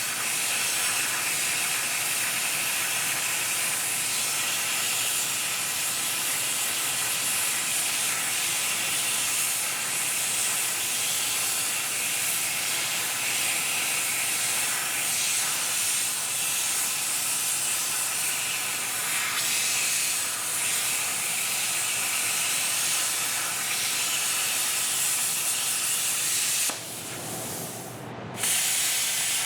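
Steady, loud hissing noise, breaking off for about two seconds near the end.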